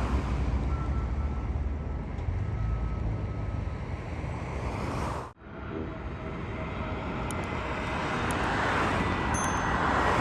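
Airbus A320neo airliner's jet engines heard from the ground as the plane passes, a steady rumble that breaks off sharply about five seconds in. After the break the jet noise builds louder, with a steady high whine over it.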